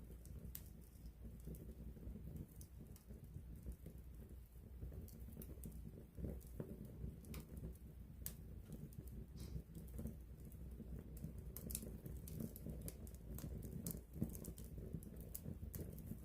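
Wood campfire burning at close range: a low steady rumble of flame with scattered sharp crackles and pops of burning wood, coming more often in the second half.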